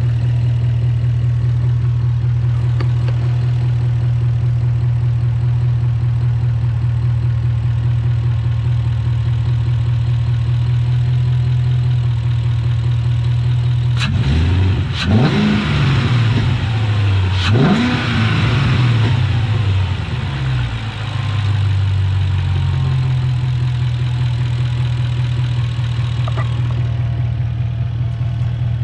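BMW E39 540i's 4.4-litre V8, fitted with the older 4.0-litre V8 intake manifold and an open cone air filter, idling steadily. About halfway through it is revved twice in quick succession, each rev rising and falling back, and the idle dips briefly before settling again.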